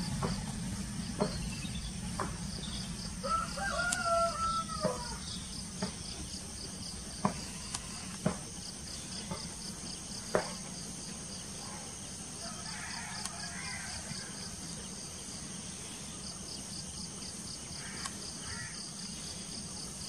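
Low rumble of an Airbus A320-family airliner's jet engines, slowly fading as it climbs away after take-off. A rooster crows once a few seconds in, insects chirp in fast, even pulses, and there are a few sharp clicks.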